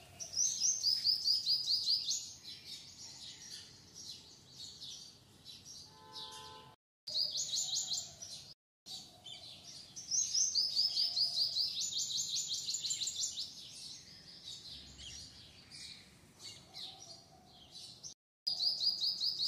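Small birds chirping in quick, high trills, runs of repeated notes again and again, with the sound cutting out briefly three times.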